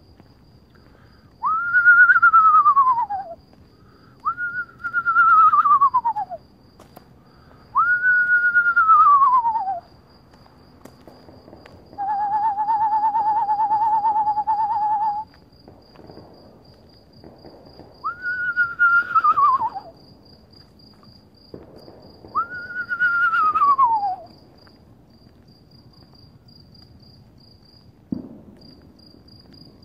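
A person whistling imitations of eastern screech owl calls: five loud whinnies that jump up and then slide down in pitch over about two seconds each, with one steady, level trill of about three seconds in the middle. Insects pulse faintly and evenly throughout.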